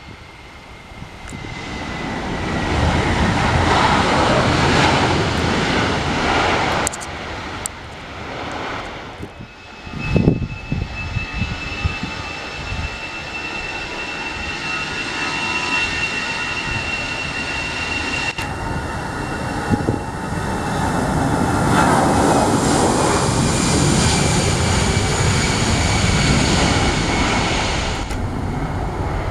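Airliner engines running loud and steady: a broad rush of engine and air noise with a high whine over it. The sound changes abruptly about ten seconds in and again near the end.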